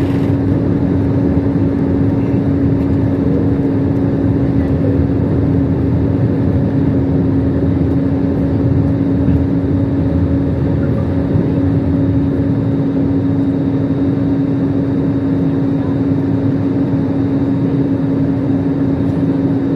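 Airbus A320's CFM56-5B engines running at takeoff power during the initial climb, heard inside the cabin: a loud, steady drone with a constant low hum.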